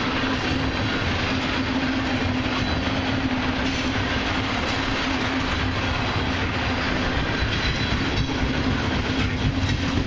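Loaded tank cars of a long freight train rolling steadily past, with a continuous rumble and clickety-clack of wheels over the rails.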